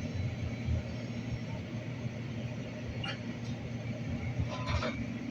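Light-rail train running, heard from inside the car: a steady low rumble and wheel-on-rail noise, with two brief higher-pitched sounds about three seconds in and again near the end.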